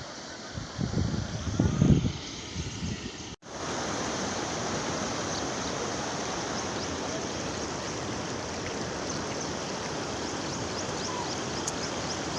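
Steady rush of flowing floodwater, a monsoon overflow running like a small river. In the first few seconds it is mixed with uneven low rumbles, and there is a sudden cut about three seconds in, after which the water rushes evenly.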